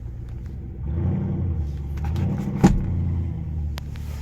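An engine running steadily in the background, getting louder twice as it picks up, with a sharp click about two and a half seconds in and a few lighter clicks near the end.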